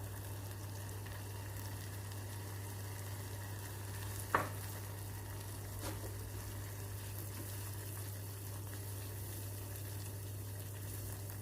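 Garlic butter and sour cream sizzling gently in a saucepan over medium heat as they are stirred, over a steady low hum. A sharp tap comes about four seconds in, and a fainter one about two seconds later.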